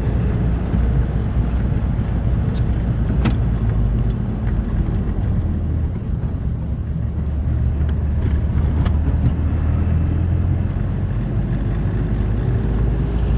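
Steady low rumble of motor vehicle engines running, growing a little heavier about halfway through, with a few faint clicks.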